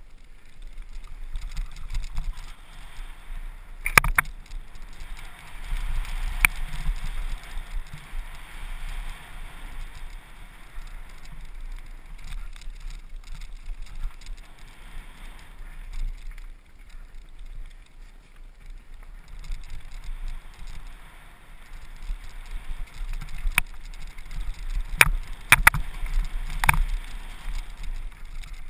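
Trek Remedy 8 full-suspension mountain bike descending fast over gravel and dirt: a steady hiss of tyres on loose stones over a low rumble of wind on the microphone. Sharp clacks of the bike hitting bumps come about four seconds in and in a quick cluster near the end.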